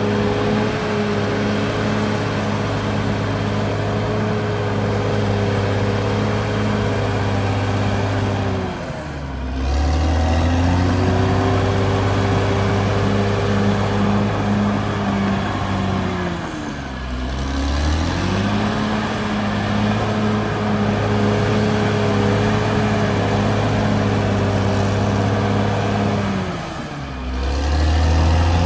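Caterpillar D6R XL bulldozer's diesel engine running hard with a steady high whine above it. The engine note drops sharply and comes back up three times, about every eight to ten seconds.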